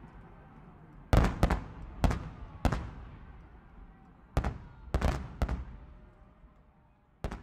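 Aerial fireworks bursting: about ten sharp bangs, some in quick pairs and triplets, each followed by a fading echoing rumble.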